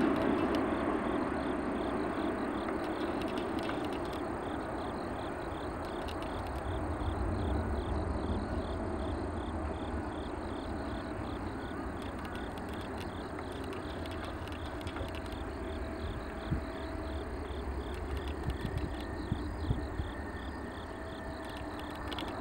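Jet engine noise of a landing Airbus A380 fading as it moves away after passing overhead, then a low steady rumble as it touches down and rolls out. Insects chirp throughout in a steady pulsing rhythm.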